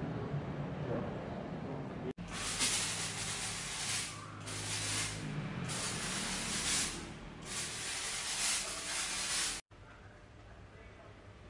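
Fogging sprayer hissing in four bursts of one to two seconds each, with short gaps between them. The hissing starts and stops abruptly, about two seconds in and again near the end.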